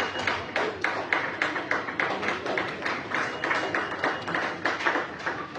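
Audience clapping in a quick, steady rhythm of about four claps a second, dying away near the end.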